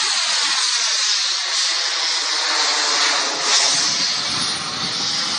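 Jet fighter's engine noise as it flies a display: a loud, steady rushing hiss with a slowly sweeping, hollow shift in tone as the aircraft moves overhead.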